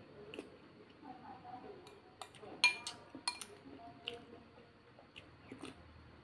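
Metal spoon clinking against a ceramic soup bowl, a handful of sharp clinks with the loudest about two and a half seconds in, between soft chewing and slurping of noodle soup.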